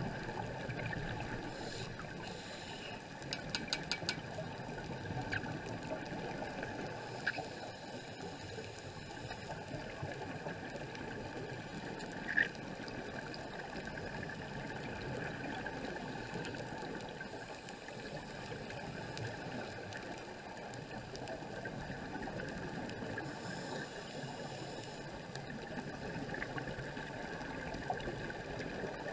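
Muffled, steady rushing noise of water heard by an underwater camera in its housing while the diver swims, with a quick run of faint clicks about four seconds in and one sharp click near the middle.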